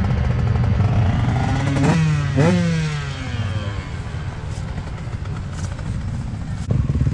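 Motocross bike engines running on the track, revving up and down, loudest with sharp pitch sweeps about two seconds in, then fainter.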